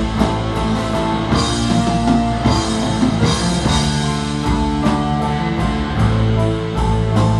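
Rock band playing, with guitar and a drum kit over held, sustained chords.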